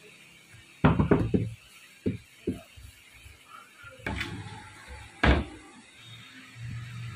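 Knocks and clunks of a motorcycle cylinder block being handled on a workbench: a quick cluster of knocks about a second in, two lighter ones shortly after, and two louder single knocks around four and five seconds in.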